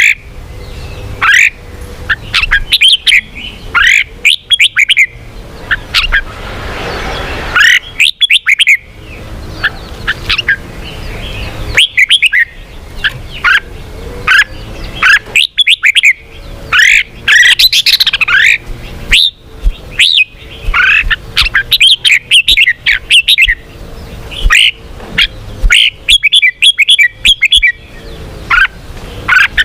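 Red-whiskered bulbul singing and calling: loud clusters of quick, sharp chirping notes with short pauses between them.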